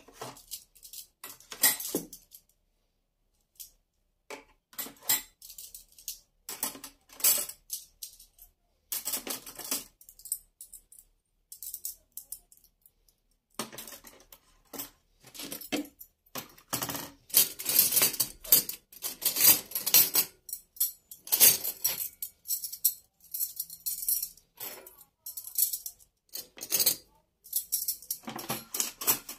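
Irregular clinking and rattling of small hard objects being handled, in short bursts with brief pauses, busier in the second half.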